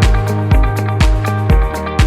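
Background music with a steady beat of about two kicks a second and plucked guitar notes.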